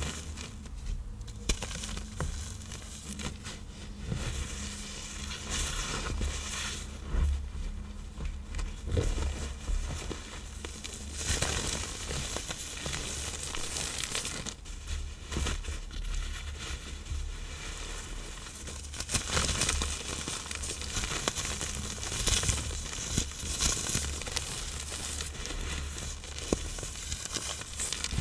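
Reformed blocks of iron oxide powder and cornstarch being crushed, with dry, gritty crumbling crunches and fine crackles, uneven and continuing throughout.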